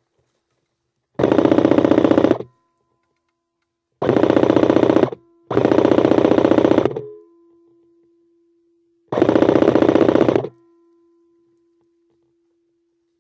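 Airsoft M4 rifle firing four full-auto bursts of rapid clicking shots, each lasting just over a second, with short pauses between them.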